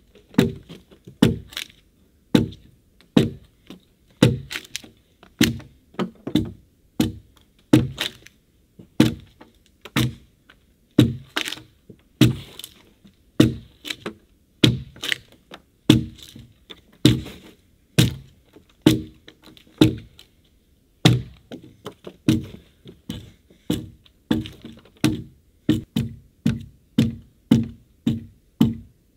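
Axe chopping into a log: a steady run of sharp blows, about one to two a second, each with a short woody ring, with a brief pause about twenty seconds in.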